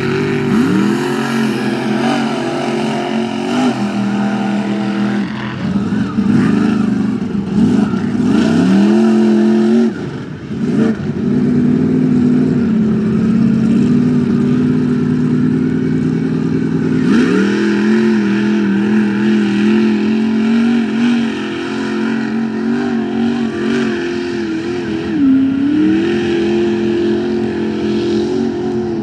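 Mud-bogging truck's engine revving hard at high rpm, its pitch swinging up and down and then held high for long stretches, with brief drops in revs about ten seconds in and again near the end.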